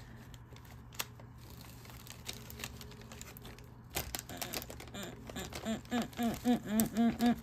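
Soft clicks and plastic rustles from small bags of diamond painting drills being handled. In the second half, short repeated humming notes, about three a second, grow louder toward the end.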